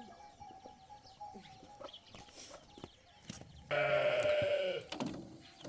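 A farm animal gives one long bleat, lasting about a second, a little past the middle.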